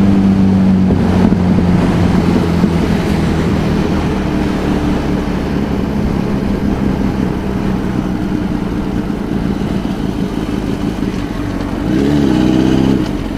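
Honda sport bike's engine running steadily at road speed under the rush of wind and road noise, heard from the rider's seat. Near the end the engine note dips and rises as the throttle changes.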